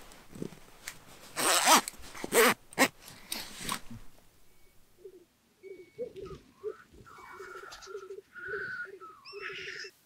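Black grouse lekking: after a few loud noisy bursts, the males' low bubbling song starts about five seconds in, a repeated rhythmic run of bubbling notes with hissing calls above it.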